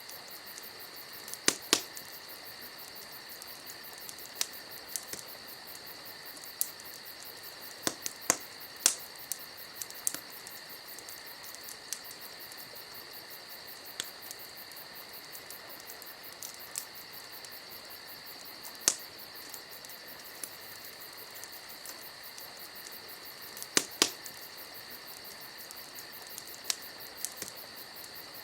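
Campfire crackling, with scattered sharp pops from the burning wood, over a steady high chorus of crickets.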